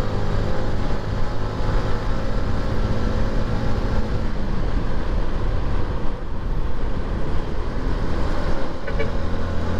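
Motorcycle engine running steadily at cruising speed, mixed with constant wind rush and tyre noise on a wet road. The engine's steady hum eases about four seconds in and picks up again near the end.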